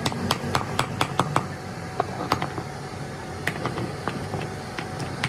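Hand hammer striking the steel yoke of a truck drive shaft's universal joint as its parts are knocked into place. Quick metallic taps come about five a second for the first second and a half, then scattered single knocks.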